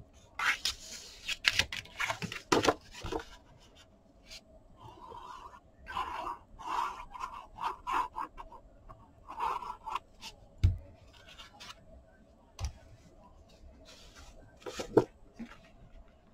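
Kraft cardstock being handled, slid and rubbed with a plastic folding tool on a cutting mat: short scraping and rustling sounds with light clicks, and a couple of soft thumps as card is set down in the second half.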